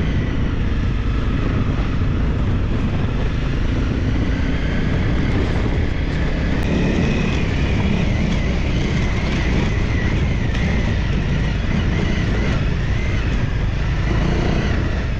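Small single-cylinder Honda dual-sport motorcycles running steadily on a dirt trail, with a constant rushing noise underneath the engine sound.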